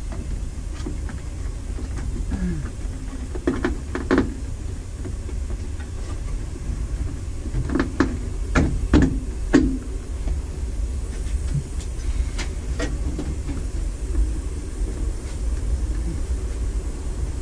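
Scattered knocks and clicks of an upholstered kick panel being pushed and handled into place against a truck's door pillar, with a cluster of sharper knocks about halfway through, over a steady low hum.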